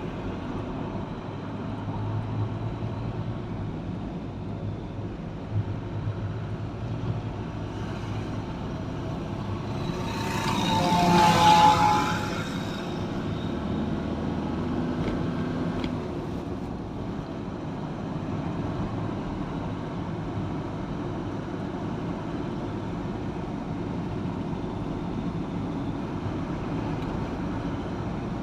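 Vehicle driving on a road: steady engine and tyre noise. Another vehicle passes loudly about ten to twelve seconds in, its sound rising and then falling away.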